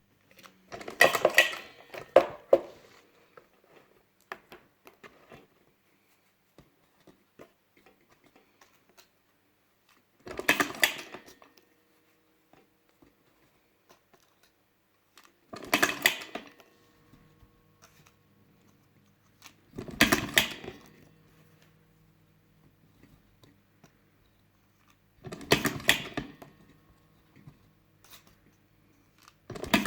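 Top-O-Matic lever cigarette rolling machine being worked by hand: a brief clattering burst about every five seconds as the lever is pulled to push tobacco into a filter tube.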